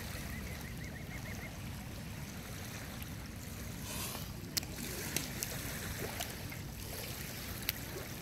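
Riverbank ambience: a steady low rumble with water sounds in shallow water. A short high warbling call comes about half a second in, and a few sharp clicks follow later.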